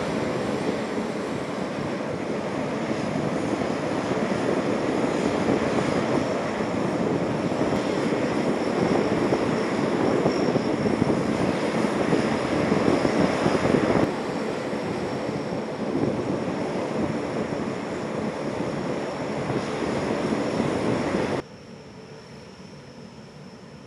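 Turboprop engines of several C-130 Hercules transports running as they taxi together: a steady loud drone with a steady high whine. It drops sharply to a much quieter drone near the end.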